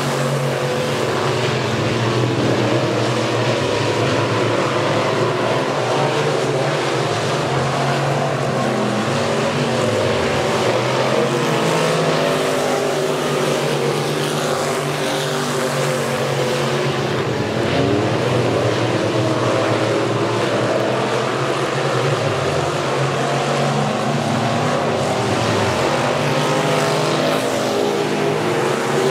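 Dirt-track race car engines running at speed, their pitch dipping and climbing back every few seconds.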